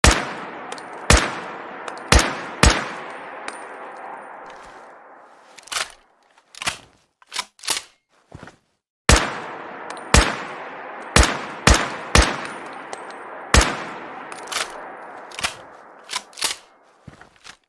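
Rifle sound effect: sharp gunshots, each with a long echoing tail, in two volleys (about four shots, then about six), with lighter metallic clicks and clanks of the action between them.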